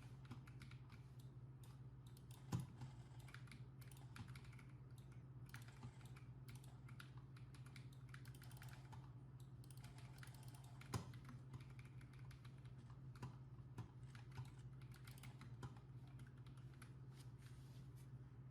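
Faint typing on a mechanical keyboard: scattered key clicks over a steady low hum, with two louder clacks about two and a half seconds in and again near eleven seconds.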